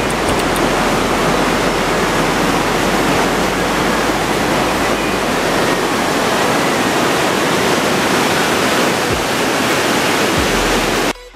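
Whitewater rapids of the Humla Karnali River rushing over rocks, heard from the bridge just above: a loud, steady roar of water that cuts off suddenly near the end.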